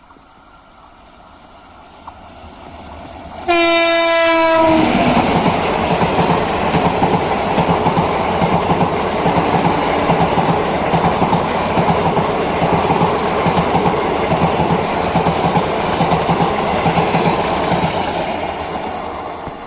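A WAP-5 electric locomotive sounds its horn once, suddenly and for about a second, its pitch dipping slightly as it comes level. Then the express train runs past at speed, with a loud rush and rapid rhythmic clatter of wheels on the rails, fading near the end as it goes by.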